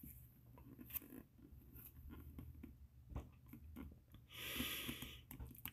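Quiet room tone with a low hum and a few faint small clicks, and a soft breath-like hiss lasting about a second, some four seconds in.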